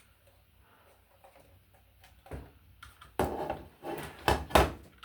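Small objects being handled and set down on a surface: a few scattered knocks and rattles in the second half, the loudest a pair of sharp knocks about four and a half seconds in.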